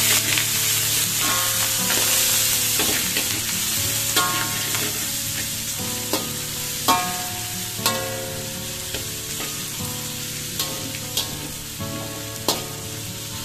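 Chopped garlic, shallots, onion, chillies and curry leaves sizzling in hot oil in a metal wok, with a metal spatula scraping and stirring them. Now and then the spatula knocks the wok, and each knock leaves a short metallic ring. The sizzle eases off slowly as the aromatics are sautéed.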